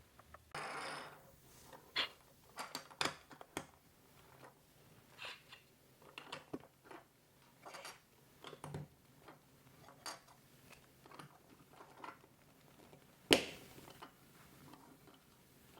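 LEGO Duplo plastic bricks being handled and pressed together: a scattered series of light clicks and knocks, with a short rustle about half a second in and one sharp, louder click near the end.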